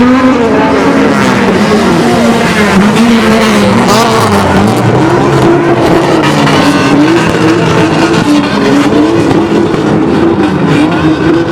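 Car engines running hard on a race circuit, revving up and down so that the pitch rises and falls repeatedly.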